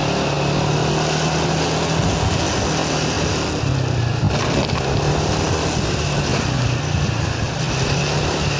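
Motor scooter's engine running steadily while riding at low speed, a low hum that drops slightly in pitch for a few seconds midway, over road and wind noise.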